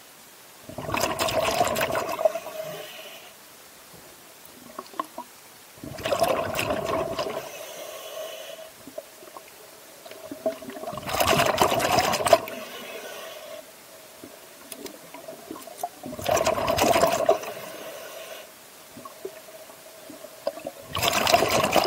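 A scuba diver breathing underwater: exhaled bubbles rush out of the regulator five times, each burst about a second and a half long and about five seconds apart, with a faint steady tone between breaths.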